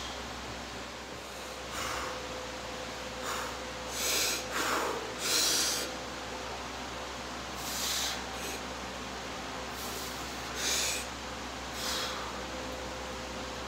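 A man's short, heavy breaths, about nine at irregular intervals, the strongest cluster a few seconds in, over a steady background hum.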